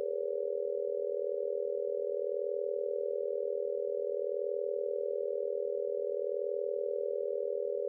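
Five pure sine tones at 405, 445.5, 486, 526.5 and 567 Hz sounding together as one steady, unchanging chord, evenly spaced 40.5 Hz apart.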